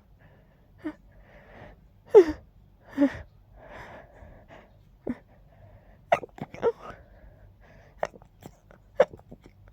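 A person's stifled sneezes held in with fingers at the nose: a string of short, sharp, muffled bursts with breathy gasps between them. The strongest comes about two seconds in, and several quick ones come close together after the middle.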